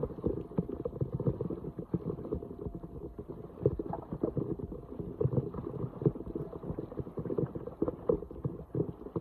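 Floodwater splashing and sloshing in a dense, irregular series of low splashes.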